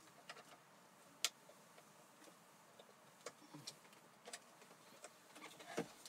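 Scattered light clicks and ticks of plastic wiring-harness connectors and wires being handled, the sharpest about a second in and a few more toward the end.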